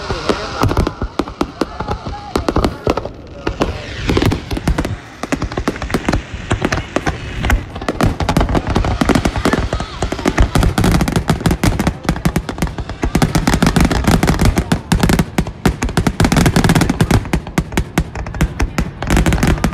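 Fireworks display: aerial shells bursting in rapid, overlapping bangs and crackles, growing denser and louder about eight seconds in.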